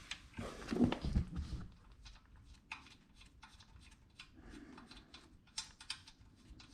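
Pump mounting bolts being handled and started by hand: a louder rustle of handling about a second in, then scattered small metal clicks and ticks.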